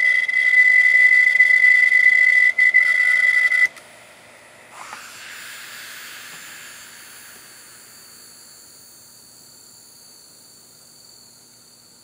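Failed Seagate Barracuda 750GB hard drive squealing with a loud, steady high tone, the sound of its failed head riding the platter; it cuts off suddenly a few seconds in. After that the opened drive's spinning platters give a faint hiss and a thin high whine that slowly fades.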